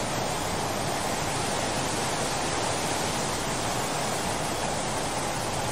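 Floodwater rushing from a large concrete dam's open spillway gates and crashing into spray below, a steady, unbroken rushing noise.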